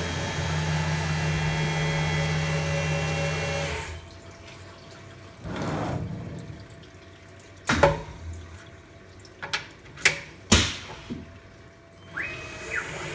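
Benchtop CNC mill (Grizzly G0704 conversion) cutting with its spindle running and flood coolant spraying, which stop about four seconds in. After that come a brief swish, several sharp knocks, and a short high beep near the end.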